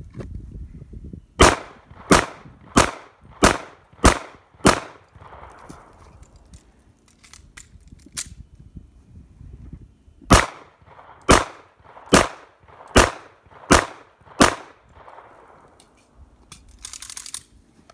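Semi-automatic pistol, a SIG Sauer P229, fired in two strings of six shots, about one shot every two-thirds of a second, with a pause of about five seconds for a magazine reload between the strings.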